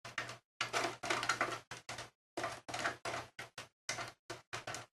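Thumb screw being turned out by hand from a Compaq Evo desktop computer case: a run of short, irregular scraping and clicking sounds from the screw and the fingers on the metal case.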